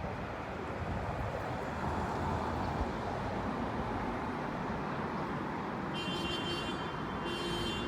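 Steady road traffic noise, with two short pitched tones, each under a second, near the end.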